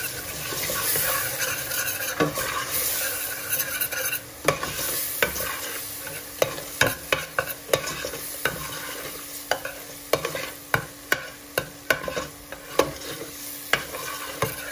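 Ground spices and tomato paste frying in oil in a stainless-steel pot, sizzling as a metal spoon stirs the masala, the spoon scraping and knocking against the pot. The sizzle is strongest in the first few seconds; after that sharp knocks of the spoon on the pot come about once or twice a second.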